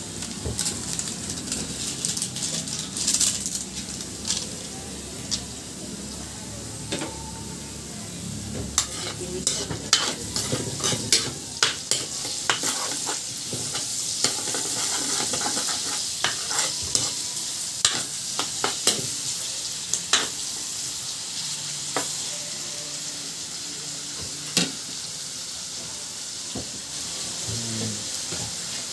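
Vegetables sizzling in a black steel wok as they are stir-fried, with a metal spatula scraping and knocking against the pan in many short sharp clicks, most of them through the middle stretch.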